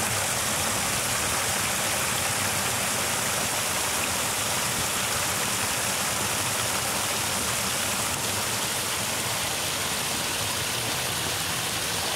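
Muddy water pouring over a cut earthen bank in small falls, a steady, unbroken rush.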